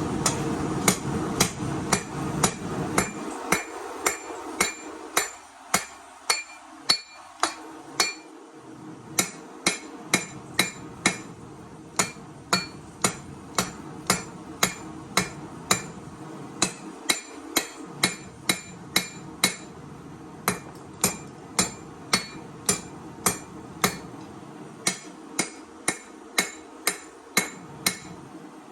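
Hand hammer forging a steel chef-knife blank on an anvil: steady blows about one and a half a second, each with a bright metallic ring, with a short pause about eight seconds in. A low steady rush fades away over the first few seconds.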